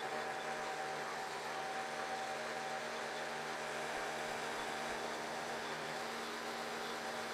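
Milling machine running with a 7/16-inch end mill cutting a slot in a metal plate: a steady machine hum and cutting hiss with a constant tone.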